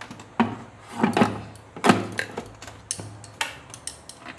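Knocks and clatter of a Crompton mixer grinder's stainless-steel jar being set onto its plastic motor base and its lid pressed on, about half a dozen separate knocks with the loudest about two seconds in.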